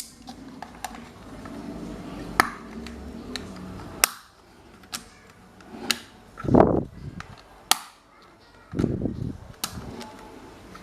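Scattered sharp clicks and taps of tools and metal fan parts being handled, with two louder, longer scraping or rustling bursts past the middle.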